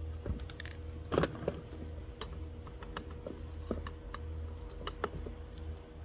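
Small metal scoop scraping and tapping as gritty potting soil is spooned and scattered into a succulent pot: irregular small clicks and rustles, with a louder cluster a little over a second in.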